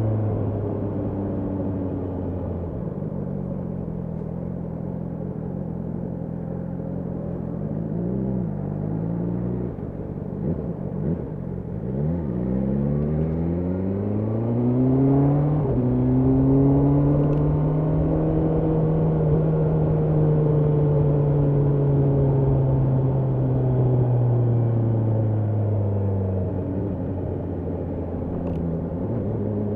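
BMW S1000R's inline-four engine under way: running low and steady at first, then climbing in pitch in quick steps about twelve seconds in as the bike accelerates. It holds a steady higher note for several seconds, then falls away gradually near the end as the bike slows.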